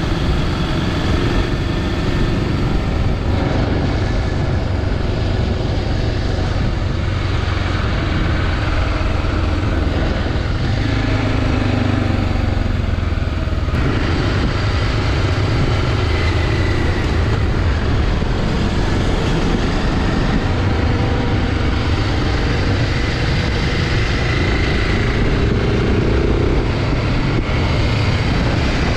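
BMW G650 Xcountry's single-cylinder engine running steadily under way, its note drifting up and down a little, over a constant rush of riding noise.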